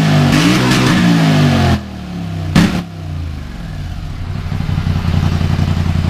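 Polaris Scrambler XP 1000 ATV engine on its stock exhaust, revved for about two seconds, blipped once more, then settling to a steady idle. It echoes in a closed garage and has a lot of bark.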